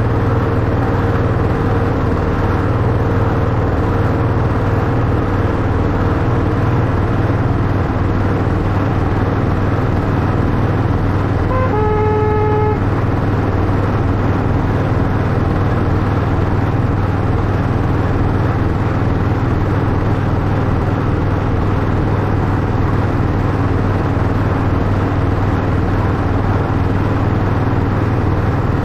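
Miniature Class 91 InterCity replica locomotive running along its track with a steady low drone. About twelve seconds in, its horn sounds once, a single pitched toot lasting about a second.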